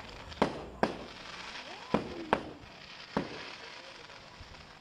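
Aerial fireworks shells bursting: five sharp bangs, in two quick pairs within the first two and a half seconds and a single one about three seconds in.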